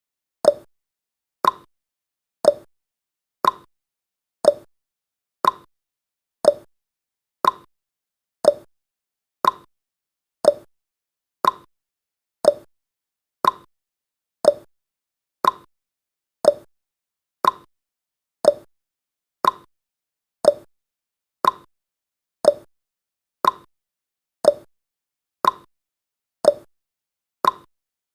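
Countdown timer's tick sound effect: one short, sharp click every second, evenly spaced, with silence in between.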